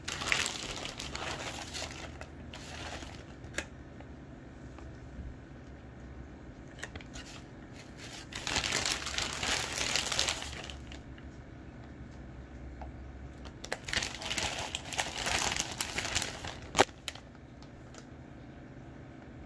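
Plastic bag of pre-shredded cheddar crinkling as it is handled and the cheese shaken out, in three spells of a few seconds each, with one sharp click near the end.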